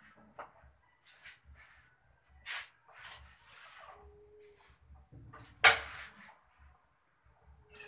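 Kitchen handling noises at a gas stove: soft rustles and small knocks, with one sharp, loud clack a little over halfway. There is also a brief faint steady tone about halfway.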